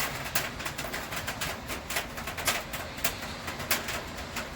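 Rain falling, with raindrops tapping irregularly in sharp ticks several times a second over a steady hiss.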